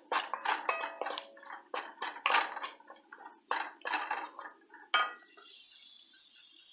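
Wooden spoon scraping and knocking against an enamel pot as flour is stirred into diced vegetables, in a quick run of strokes with short clinks. The stirring stops about five seconds in, leaving a faint steady hiss.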